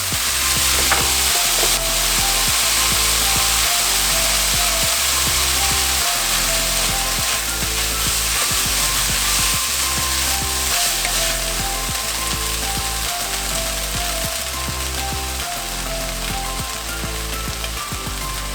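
Food sizzling as it is stir-fried in an oiled frying pan, a dense steady hiss, under background music with a repeating bass line.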